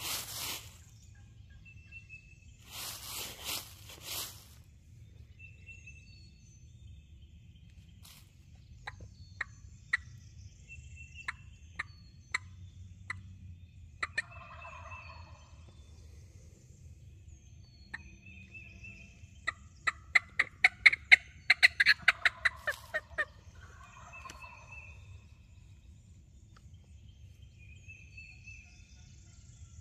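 Turkey calling from a hunter's call: a few spaced single clucks, then a fast run of loud, sharp cutts about twenty seconds in. A short rustle of leaves comes near the start, and faint songbirds chirp in the background.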